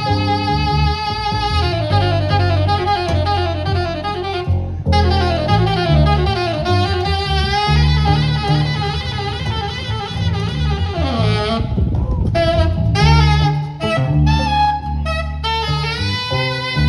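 Live jazz from a saxophone, upright double bass and guitar: the saxophone plays running melodic lines over the bass. About eleven seconds in, the saxophone drops out briefly, leaving short plucked string notes over the bass before it comes back in.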